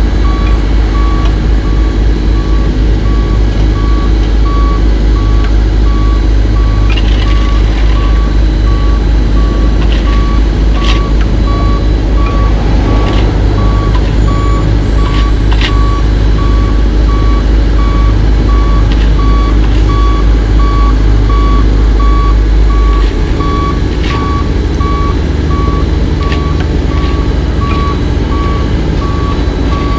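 Heavy diesel paving equipment running with a deep drone that eases off about three-quarters of the way through, under a backup alarm beeping steadily at an even pace. Occasional sharp metallic clanks are mixed in.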